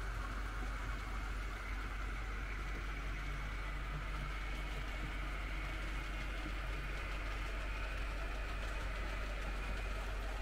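Märklin H0 model trains running on the layout's metal track: a steady hum of small electric motors and wheels, with a thin high whine.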